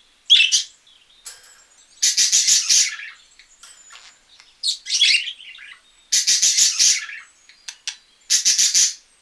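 Animal calls: three loud, harsh squawks of about a second each, made of rapid pulses, with shorter high squeaky chirps between them.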